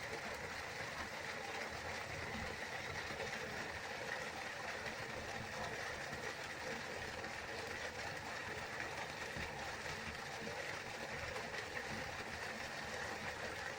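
River water flowing steadily: an even, continuous rushing with no breaks.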